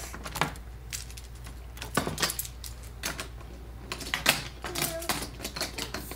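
Wooden toy train and wooden track pieces clicking and clattering as they are handled and pushed along on a play table, in irregular small knocks.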